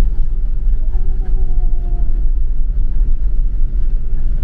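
Steady low rumble of a tourist shuttle bus's engine and road noise as heard from inside the cabin while it drives.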